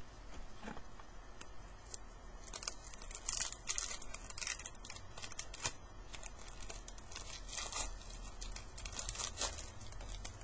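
Upper Deck Victory hockey card pack wrapper being torn open and crinkled by hand, a string of short, irregular crackling rustles starting about two and a half seconds in.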